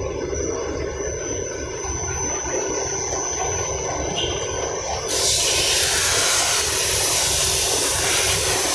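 Five-colour vertical flexo printing machine running with a steady low rumble and a thin high whine. About five seconds in, a loud, steady hiss starts suddenly, like air rushing, and carries on over the running machine.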